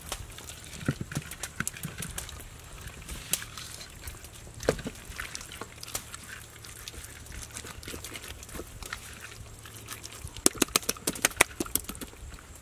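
Hands kneading and rubbing a chili-salt marinade into raw pork ribs in a pan, making wet squelches and sticky smacks. Near the end there is a quick run of sharper, louder clicks.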